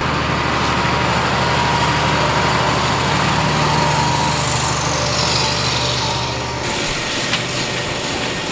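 Engine of a fertilizer spreader running close by as it passes, with a steady low hum and a high whine that falls in pitch midway. The sound drops and changes abruptly about six and a half seconds in.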